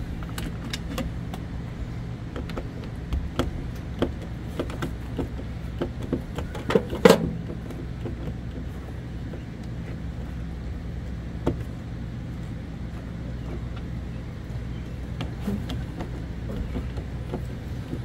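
Hand tool turning out the bolts of a camper's entry-door latch: scattered small metallic clicks and knocks, with one sharp knock about seven seconds in, over a steady low mechanical hum.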